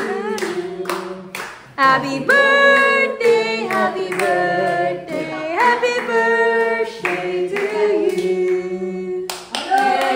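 A group of people singing a birthday song together, clapping along in steady time about twice a second. The song breaks off shortly before the end into a burst of voices.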